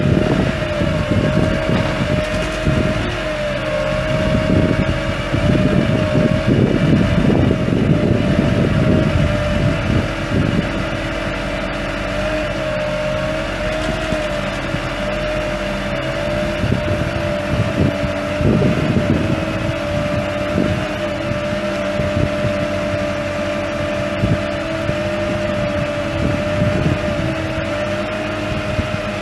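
Isuzu 6.6L V8 turbo diesel of a GMC C4500 service truck running steadily with a constant high whine, while wind gusts on the microphone, most heavily in the first ten seconds.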